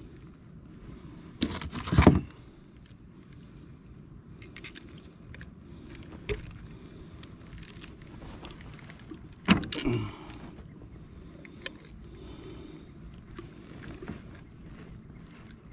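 Small clicks and rattles of fishing pliers and hook handling while a hook is worked out of a big blue catfish's mouth. Two louder clattering knocks come about two seconds and ten seconds in.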